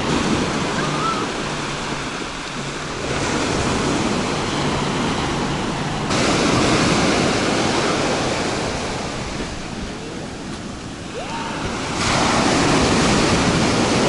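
Sea waves breaking on a sandy beach and washing up the shore, the surf swelling louder about three seconds in, about six seconds in and again near the end.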